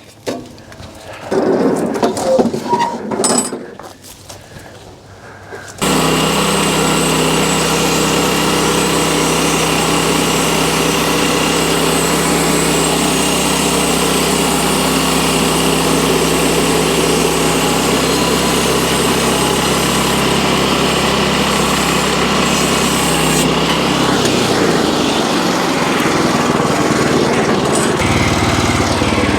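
Irregular knocks and clanks, then an engine starts running steadily about six seconds in, cutting in suddenly at full loudness. Its tone shifts a little near the end.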